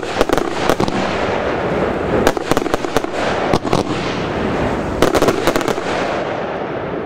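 Firework cake firing: a continuous dense crackle with clusters of sharp bangs, several in quick succession.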